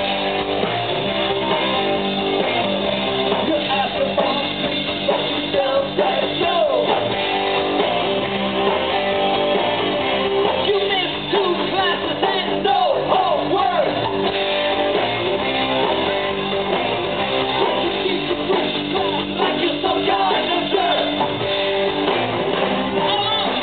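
A live band playing, with a singer singing into a handheld microphone over the band.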